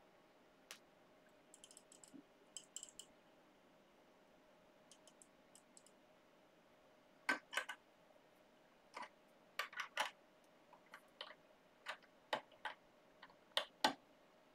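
Irregular sharp clicks and small metallic knocks from the resin printer's build platform and its fittings as the platform is held down on the levelling paper and its screws are tightened. They are sparse at first and come in quick clusters from about halfway on, over a faint steady hum from the printer's fan.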